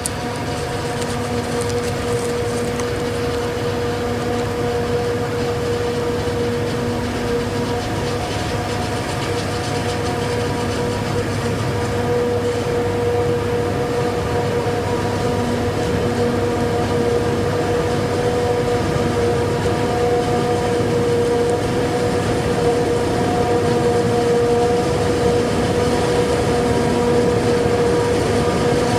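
Claas Jaguar 870 self-propelled forage harvester chopping corn for silage, running steadily at working speed. Its high, unchanging whine sits over the diesel's noise, and it grows slowly louder.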